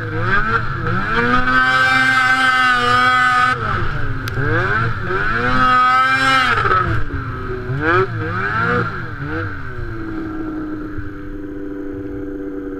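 Snowmobile engine revving up and down while riding over snow, its pitch climbing and holding high twice, with more quick rises and falls after, then settling to a lower steady note for the last few seconds.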